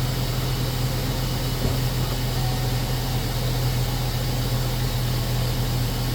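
2003 Chevy Silverado's 5.3 L V8 idling steadily, just back together with new knock sensors, oil pressure sensor and intake manifold gaskets, and running with good oil pressure.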